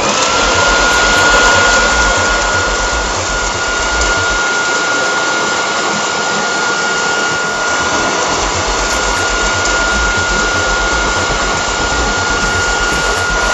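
Electric 3,000 W garden blower-vacuum-shredder switched on: its motor whine climbs quickly to a steady high pitch, then runs evenly over a loud rush of air.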